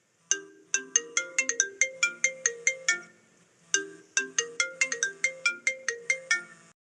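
A phone ringtone melody: quick, bright notes over a lower bass line, played twice with a short pause between.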